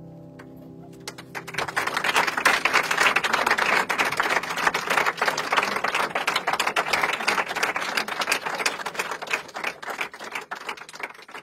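Audience applauding, rising about a second in as the last notes of piano music die away, then thinning to a few scattered claps near the end.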